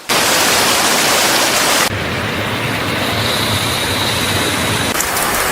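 Steady rushing noise of flowing water, with an abrupt cut to a slightly quieter mix about two seconds in and a faint high whine partway through.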